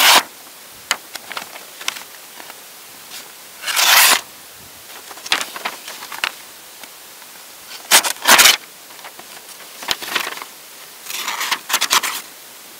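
A freshly sharpened knife slicing through a sheet of paper held up in the hand: about four separate cutting strokes a few seconds apart, with paper rustling between. It is a sharpness test, and the paper cuts through, a sign that the edge is now sharp.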